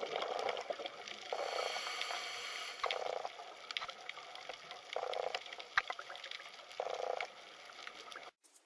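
Underwater camera sound: a steady watery hiss scattered with crackling clicks, with a low rushing surge about every two seconds. It cuts off abruptly near the end.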